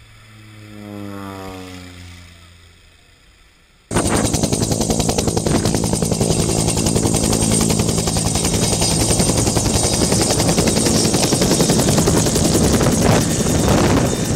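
A light propeller plane flying over, its engine note swelling and then fading while it slides down in pitch as it passes. About four seconds in, a helicopter's rotor starts abruptly, close and loud, chopping fast and steadily while it hovers.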